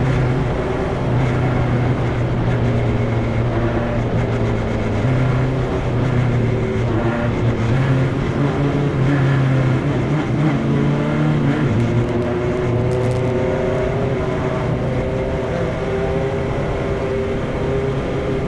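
Onboard sound of a single-seater formula race car's engine running steadily at part throttle, its revs climbing gradually in the last few seconds.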